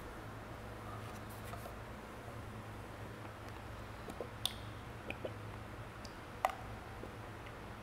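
Quiet room with a steady low hum, broken by a few faint clicks and taps from handling a plastic engine oil bottle, the sharpest two about four and a half and six and a half seconds in.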